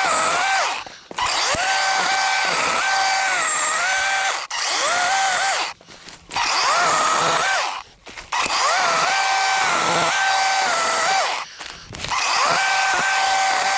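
DeWalt 20V cordless chainsaw with a 12-inch bar running in bursts, a high electric motor whine that dips in pitch and recovers as the chain cuts through branches. The motor stops and restarts several times as the trigger is released and squeezed again.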